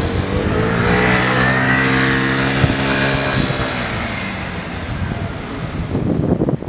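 Motor scooter passing close by, its engine note swelling and then fading away over about five seconds.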